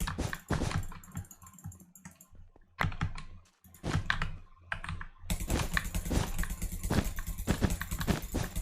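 Key presses on a lubed mechanical keyboard with greased stabilizers, added foam and new keycaps, clacking in quick irregular runs. The presses thin out for a moment about two seconds in, then become a fast, unbroken stream from about five seconds in.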